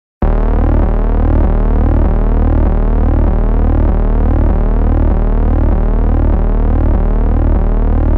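Synthesized electronic sound effect from a web-based software synthesizer: a loud, steady tone cut in suddenly, with pitch sweeps rising again and again over a pulsing bass.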